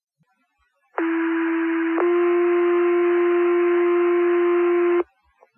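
Two-tone sequential fire pager alert tones sent over the dispatch radio channel to set off the volunteer firefighters' pagers. A tone of about one second steps to a slightly higher, louder second tone held for about three seconds, over radio hiss.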